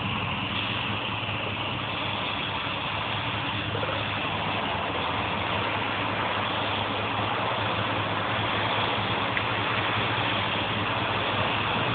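Steady engine idling, a constant low hum under an even hiss.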